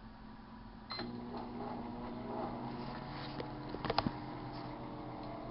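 Sharp Carousel microwave oven switching on with a click about a second in, then running with a steady hum. A few sharp clicks come about four seconds in.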